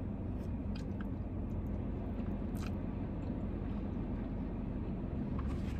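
A person chewing food, with a few faint clicks, over a steady low rumble.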